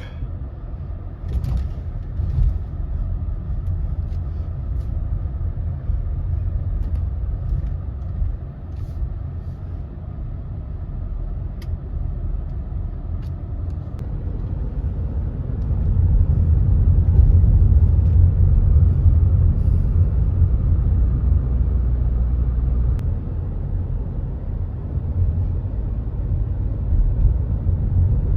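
Car driving, heard from inside the cabin as a steady low road and engine rumble that grows louder about halfway through.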